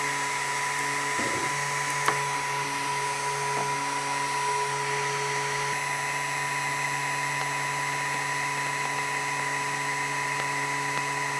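Cooling fan of a 5.5 W blue diode laser module running steadily with the laser switched on: an even whirring hum with a thin steady whine over it. A single short click about two seconds in.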